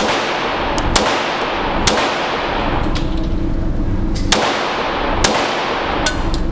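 Glock pistol firing .357 SIG through a ported Lone Wolf conversion barrel: five shots, three about a second apart, then a pause of about two seconds and two more. Each shot rings on in the echo of an enclosed brick-walled indoor range.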